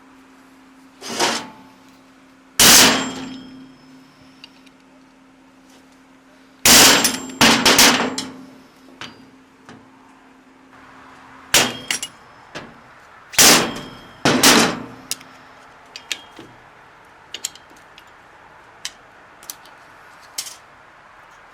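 Hammer striking metal on a car differential: loud, ringing blows in irregular groups, with a steady ring hanging after the heaviest strikes, then lighter, quicker taps near the end.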